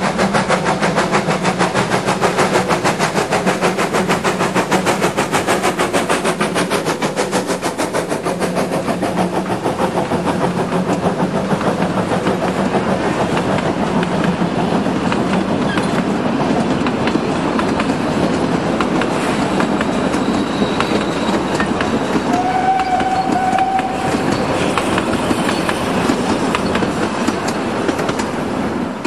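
Narrow-gauge Garratt G42 articulated steam locomotive passing close by, its exhaust chuffing in a fast, even beat, followed by a string of wooden carriages rolling past with a steady clatter of wheels on the rails. A short high-pitched tone sounds about three-quarters of the way through.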